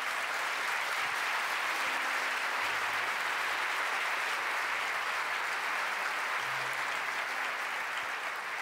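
A congregation applauding steadily, easing off slightly near the end.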